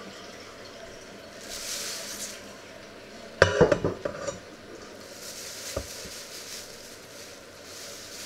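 Metal pot and dishes clattering: a quick cluster of clinks and knocks about three and a half seconds in, then a single knock a couple of seconds later. Soft hissing rushes come before and after.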